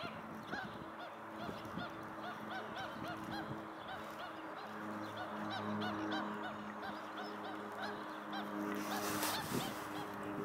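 Pied stilts giving short yapping calls over and over, several a second, over a steady low hum. A brief rushing noise comes about nine seconds in.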